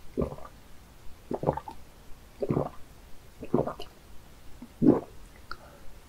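Gulping swallows of water, five of them about a second apart.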